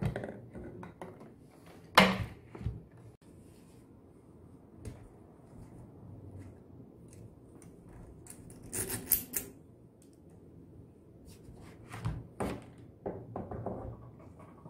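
Scattered plastic clicks and knocks from a Husqvarna combi can and a chainsaw being handled as the can's nozzle is pressed into the saw's tank and a tank cap is worked by hand. There is a sharp click about two seconds in, a rattling cluster of clicks near the middle, and a few more knocks near the end.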